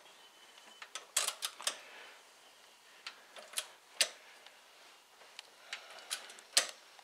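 Ratchet wrench on the crankshaft bolt of an Audi V6, turning the engine over by hand after a new timing belt is fitted: faint, irregular metallic clicks in short clusters. The engine is being turned to check that the new belt runs free and nothing binds.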